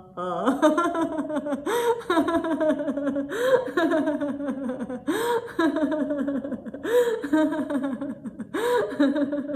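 A woman's deliberate laughter-yoga laughter: a rising whoop followed by a falling run of 'ha ha ha', repeated six times about every second and a half to two seconds, imitating fireworks shooting up and coming down.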